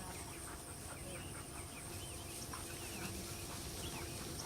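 Birds chirping faintly in short, scattered calls over a steady high insect drone.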